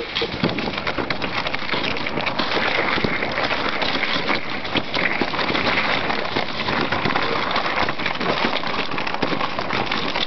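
Dog sled moving over snow and ice: a steady, dense crackling and scraping with no break.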